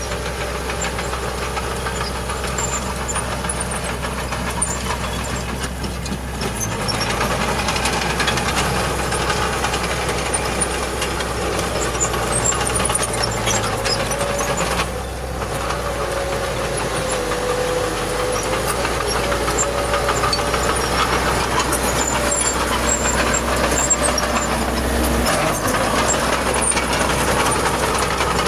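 Heavy diesel earthmoving machinery running steadily, with a whine that wavers in pitch and scattered light metallic clicks; it gets a little louder about seven seconds in.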